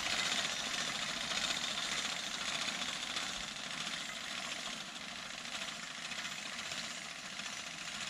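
Horse-drawn sickle-bar mower clattering steadily as its cutter bar cuts hay, growing fainter as the team pulls away.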